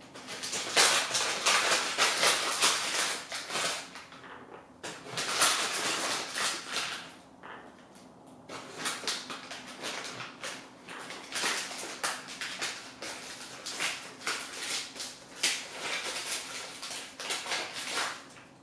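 Irregular crinkling and rustling of plastic packaging as pepperoni slices are pulled out and handled, in bursts with short pauses.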